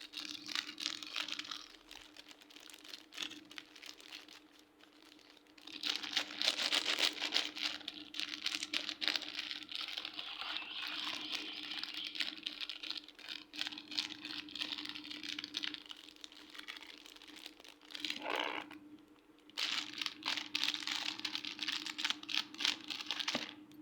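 Hands squishing and kneading soft craft slime, giving dense crackling and crinkling in stretches. The longest stretch runs from about six to sixteen seconds in, another follows near the end, and there are quieter gaps in between. A faint steady hum lies underneath.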